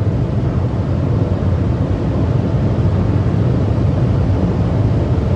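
Steady drone inside the cabin of a 2020 Honda City 1.0 Turbo, its turbocharged three-cylinder engine held near 5,000 rpm in drive at about 200 km/h. Engine, road and wind noise blend together, heaviest in the low end, with no change in pitch or level.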